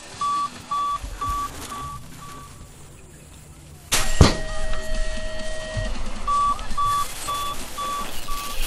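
BMX starting gate: a run of five short electronic beeps at about two a second, then a loud metal clang about four seconds in as the gate drops, followed by a ringing tone that lasts about two seconds. Another run of five beeps comes near the end.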